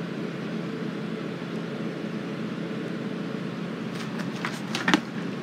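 Steady low room hum with a few light clicks and rustles about four seconds in, ending in one sharp click just before the end, from the camera or paper cards being handled.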